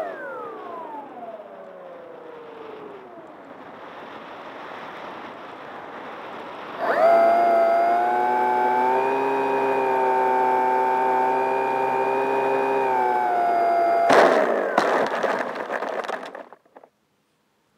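Onboard sound of an electric RC plane's motor and propeller. The motor whine slides down as the throttle is cut, followed by a steady rush of air noise. About seven seconds in, the motor comes back on at a steady pitch; about fourteen seconds in, the plane touches down on grass with rough scraping and clatter, and the motor winds down and stops.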